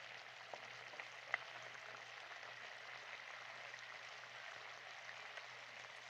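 Chicken karahi sizzling in the pan: a steady hiss with a few small pops in the first second or so.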